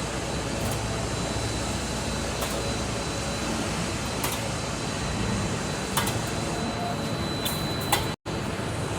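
Automatic wire mesh welding machine running: a steady mechanical din with a sharp click about every two seconds as it cycles. The sound cuts out briefly near the end.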